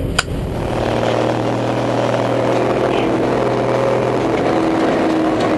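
Military cargo truck's engine running at a steady speed, heard from inside its canvas-covered bed, with one sharp click just after the start.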